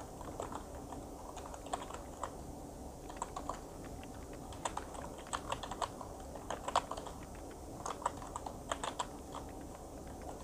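Typing on a computer keyboard: quiet key clicks in short irregular runs.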